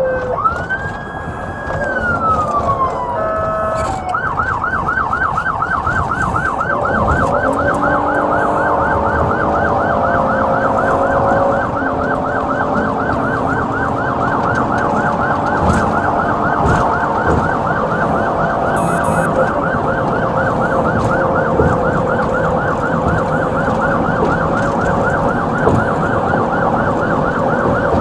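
Police siren gliding up and down in a wail, then, a few seconds in, switching to a fast yelp that repeats evenly and runs on, with a lower tone beneath it. Heard from inside a patrol car's cabin.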